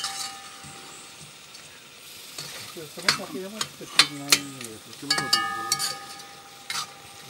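A long metal spoon stirring food in a large aluminium pot on a gas burner. It knocks and scrapes against the pot several times, loudest about three to four seconds in, over a faint sizzle.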